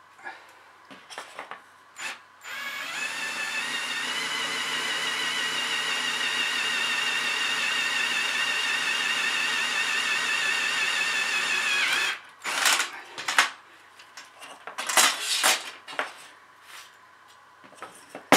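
Cordless drill boring a hole through aluminum flat bar: a steady whine for about nine seconds that stops suddenly. A few clicks and knocks follow.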